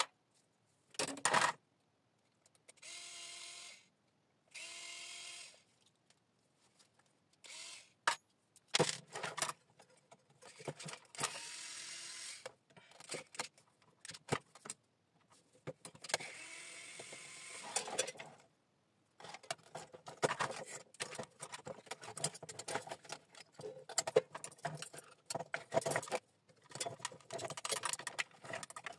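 Metal parts of a three-phase electricity meter being taken apart by hand: the aluminium housing, coil frames and small parts click, knock and rattle against each other and against a screwdriver and pliers in quick irregular knocks. There are two short steady whirs a few seconds in, and a longer noisy stretch a little past the middle.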